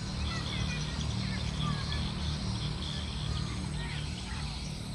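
Birds chirping, a scatter of short rising and falling calls, over a steady low rumble.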